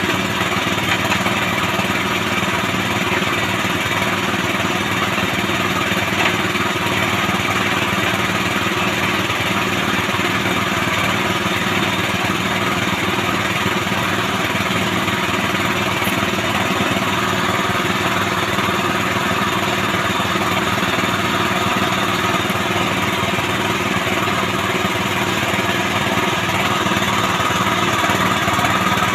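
Small petrol engine of a bore-well machine running steadily at a constant speed.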